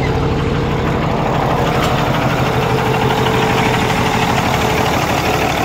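The Kenworth W900's heavy diesel truck engine idling steadily. It runs smoothly now that a temporary ground wire from the ECM to the engine block has cured the ignition power-supply fault that kept shutting it off.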